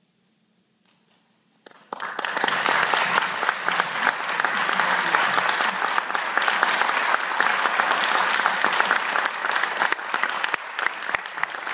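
Near silence for about two seconds, then an audience breaks into applause that goes on steadily.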